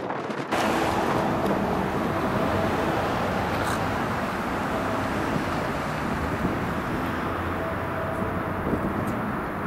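Steady rumble and hiss of a diesel-hauled commuter train running close by. It starts abruptly about half a second in.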